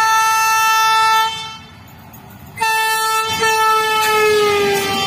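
Horn of a WDM-3D diesel locomotive: a long steady blast that stops about a second in, then after a short break a second blast whose pitch drops as the locomotive passes close by.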